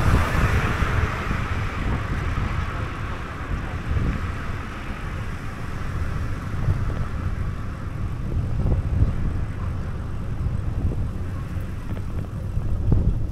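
Travel noise from a moving camera: wind buffeting the microphone with a steady low road rumble. A hiss is strongest in the first couple of seconds and then fades.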